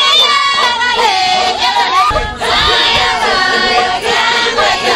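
Maasai villagers singing together in a group, many voices sliding in pitch together. About two seconds in the sound changes abruptly and a low rumble, like wind on the microphone, joins the singing.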